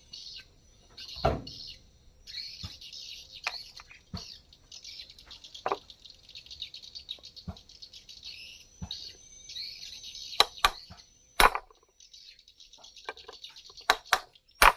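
Birds chirping almost without pause in the background, broken by scattered sharp clicks and knocks, several loud ones in quick succession near the end.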